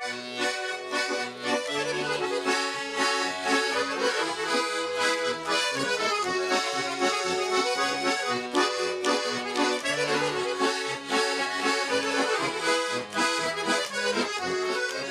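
Accordion playing an instrumental introduction to a Russian folk song, a melody over rhythmic bass chords, starting abruptly after a pause.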